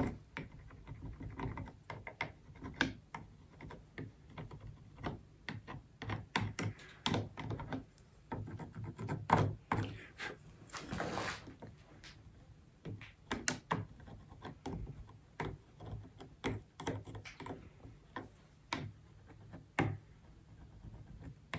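Agate burnishing tool working over gold-leafed ornament: irregular light clicks and taps with short scrapes as the leaf is pressed into the crevices and burnished.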